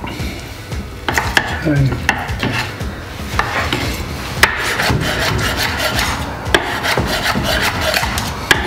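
Knife blade and metal tongs scraping and tapping on a wooden chopping board as cooked chicken breast is cut and pulled apart, with irregular clicks and knocks.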